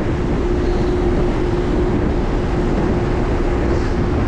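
Ferry engines running: a steady low rumble with a constant hum.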